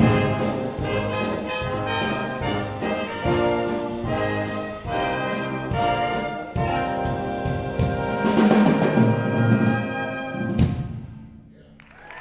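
Brass band playing a lively tune over a steady drum beat, swelling near the end and finishing on a final accented hit that rings away.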